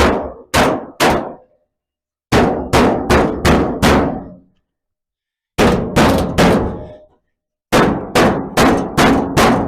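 Hammer blows panel beating a bent steel plate into shape, struck in quick bursts of three to six blows with short pauses between the bursts.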